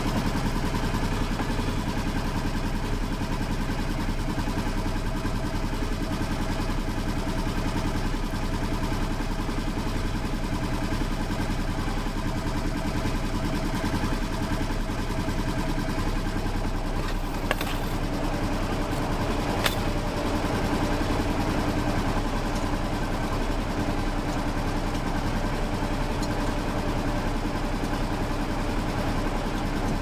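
Polaris Ranger UTV engine idling steadily, with two light clicks a little past halfway.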